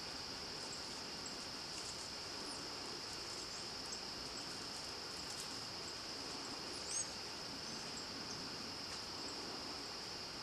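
Steady high-pitched insect drone, with a brief high chirp about seven seconds in.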